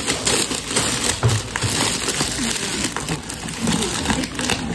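Crinkling of metallic foil gift wrap and the rustle of a cardboard box being handled as its tape is pulled at, a run of irregular crackles, with faint voices in the background.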